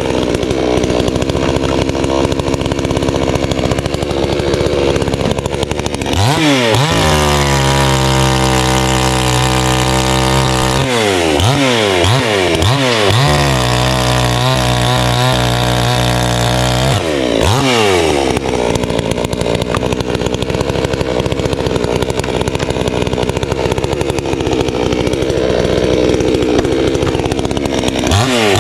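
Two-stroke gas chainsaw cutting logs at full throttle, with its engine pitch dropping sharply each time the throttle is let off: about six seconds in, several times a little later, and again around seventeen seconds, between stretches of steady running.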